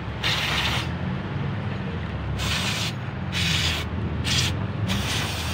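Several short hissing sprays, each about half a second long, with gaps between them, as the dirty fuel filter housing is cleaned out. A low steady hum runs underneath.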